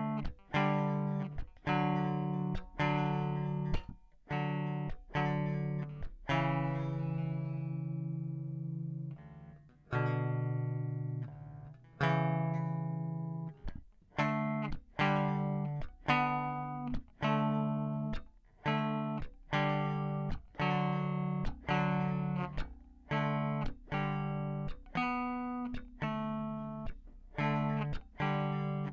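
Ibanez five-string electric bass played as a slow line of single plucked notes, each sharply attacked and left to ring, with a couple of longer held notes near the middle.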